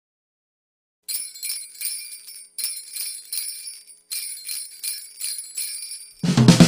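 Jingle bells shaken in a steady beat, about two or three shakes a second, starting about a second in as the intro of a Christmas pop song. Near the end the full band comes in with bass and drums.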